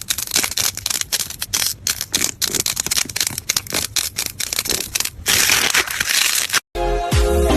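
Slime being squished and pressed by hand, with dense, irregular crackling and popping clicks, then a steadier hiss for about a second. Music with a beat starts near the end.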